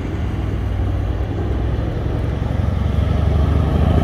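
Mercedes coupe's engine as it pulls away and drives past, a low steady engine note that grows louder as the car comes closer.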